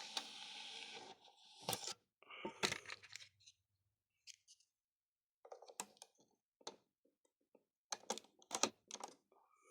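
Faint scattered clicks and light rattles of handling, a dozen or so spread over several seconds, after a short soft hiss in the first second.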